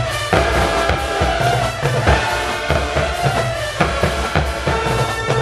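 Marching band with sousaphones and brass playing a loud tune in the stands over a steady drumline beat.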